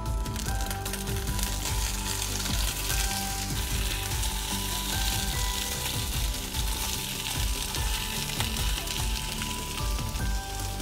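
Bacon-wrapped pheasant parcels sizzling steadily in butter in a hot frying pan, the sizzle picking up as they are laid in.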